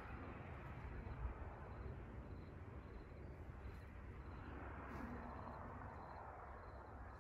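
Faint wind rustling the leaves of a snowball bush, with a low rumble of wind on the microphone. The rustle swells about four and a half seconds in.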